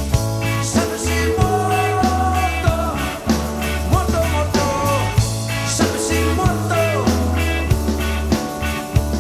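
A rock band playing live: drums keep a steady beat under a bass guitar and electric guitar, with notes bending and sliding.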